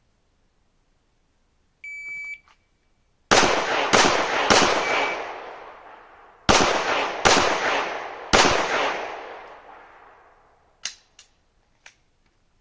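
Shot-timer start beep, then six pistol shots in two quick strings of three, each shot ringing with a long echoing tail. A few light clicks of gun handling follow near the end.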